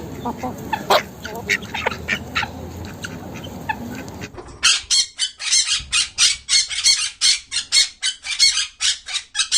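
Birds squawking: scattered short calls over a low background murmur, then, after an abrupt change about four seconds in, a rapid run of harsh squawks, about three a second.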